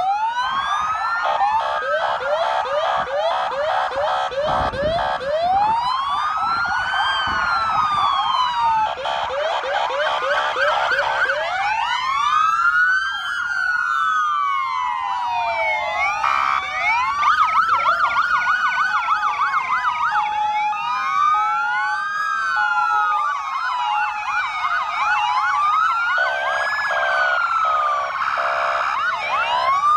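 Several emergency-vehicle sirens sounding at once, their overlapping wails and yelps rising and falling in pitch, with steady horn blasts mixed in.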